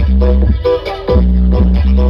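Music with a very heavy, deep bass line and guitar-like notes, played loud through Brewog Audio's giant outdoor sound system of stacked subwoofer cabinets during a sound check. The sound dips briefly about a second in.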